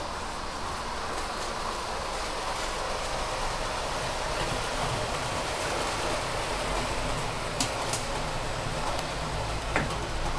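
OO gauge model train running on the layout: a steady mechanical running noise that swells a little as the diesel locomotive and its wagons come closer, with a few sharp clicks near the end.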